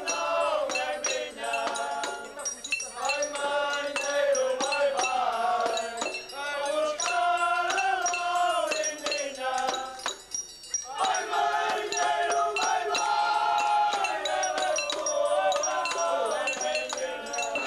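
A group of men singing together into microphones, holding long, wavering notes, with a short break a little past halfway. Regular bright metallic strikes keep time throughout.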